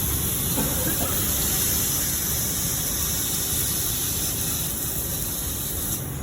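CNC cutting torch hissing steadily as it cuts, stopping abruptly near the end.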